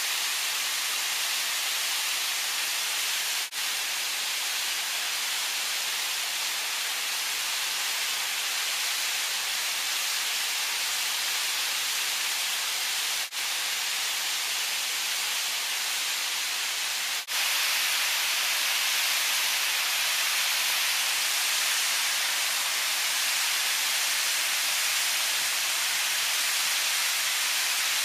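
A small mountain-stream waterfall rushing over rock ledges: a steady hiss of falling water that dips for an instant three times and is a little louder over the last third.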